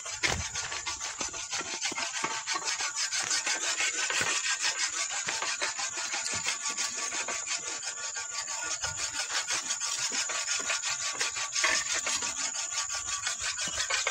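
Insects buzzing in a steady, high-pitched rasping pulse, many pulses a second.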